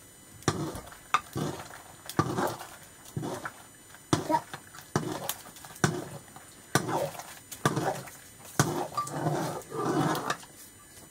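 A kitten meowing over and over, with sharp knocks of a wooden stirring stick against a metal cooking pot in between.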